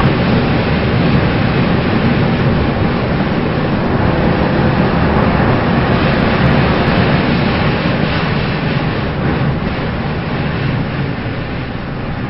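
Race car heard from inside the cabin at speed: loud, steady engine, drivetrain and tyre noise, easing off a little over the last few seconds.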